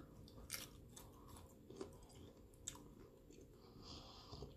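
Faint chewing of a mouthful of seasoned shrimp, with a few soft mouth clicks.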